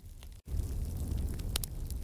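Wood fire crackling: scattered sharp pops and snaps of burning logs over a low rumble. About half a second in, the sound drops out for an instant, and the rumble comes back louder.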